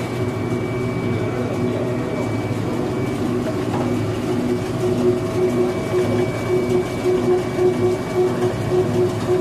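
Screw oil press running under load while oil cake is pressed: a steady machine hum from its motor and drive, with a regular pulsing of about two to three beats a second from about halfway in.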